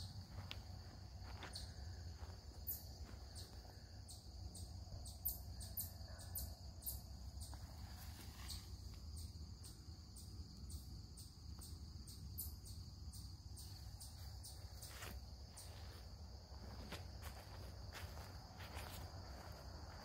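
Faint, steady high-pitched chorus of crickets, with scattered light clicks throughout.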